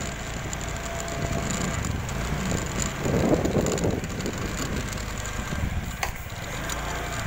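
Motorcycle engine running while riding, with a steady low rumble and wind on the microphone; a louder rush of noise about three seconds in and a sharp knock about six seconds in.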